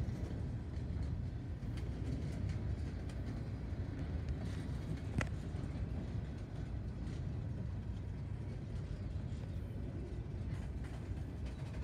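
Freight train's gondola cars rolling past: a steady low rumble of steel wheels on rail, with one sharp metallic clank about five seconds in.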